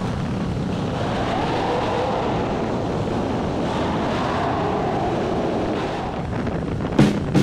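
Steady rush of wind and road noise on a motorcycle's camera microphone, riding at about 60 km/h. Music cuts back in near the end.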